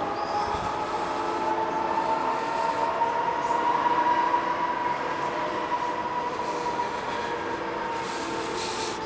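A steady mechanical whine of several tones that slowly rises in pitch and then eases back down, over a constant background rumble.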